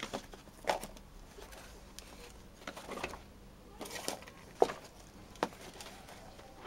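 Hard cast-resin orgonite pucks knocking against one another and the cardboard box as they are popped out of a silicone mould and packed, a handful of short sharp knocks, the loudest about four and a half seconds in.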